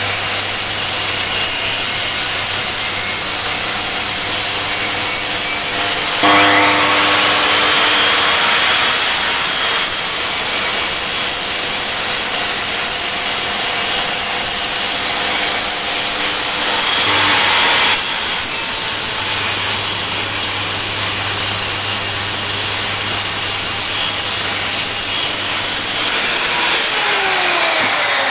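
Mitre saw cutting 30×30 aluminium extrusion profile, its motor and blade running loud and steady. The motor's whine rises in pitch about six seconds in and winds down with a falling pitch near the end.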